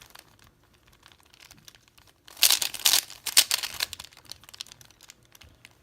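3x3 Rubik's Cube being turned by hand, its plastic layers clicking and clacking: a quick, dense run of turns from about two and a half to four seconds in, with scattered lighter clicks before and after.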